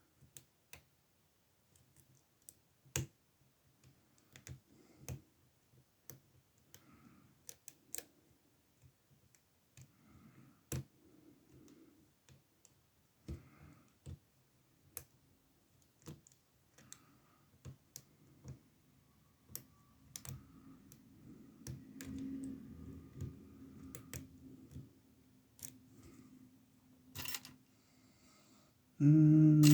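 Lock pick working in the pin-tumbler keyway of an older Ruko oval padlock cylinder: scattered light metallic clicks and faint scraping as pins are lifted, spaced irregularly.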